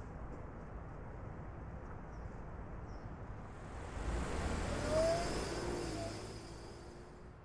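A low steady road rumble, then the 2010 Volkswagen Touareg Hybrid pulls away from the lights. Its engine and tyre noise swells from about three and a half seconds in, is loudest around five seconds, and fades as the SUV drives off.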